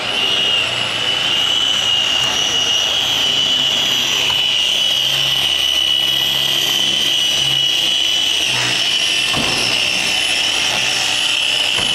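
Handheld electric car polisher with a foam pad running at steady speed on a car's paintwork, giving a continuous high-pitched whine.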